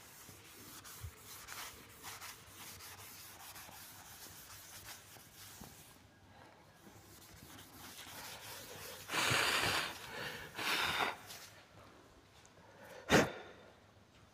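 Chalk scratching on a blackboard, then a cloth duster rubbing across the board in two louder wiping strokes about two thirds of the way through. A single sharp knock against the board near the end is the loudest sound.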